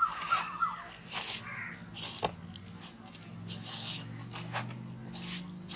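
Hands squeezing and turning a thick, wet pakoda batter of shredded chicken and banana flower in a steel bowl, giving soft squelching and crackling squishes. A quick run of short, high calls sounds in the first second, and a low steady hum sets in about halfway through.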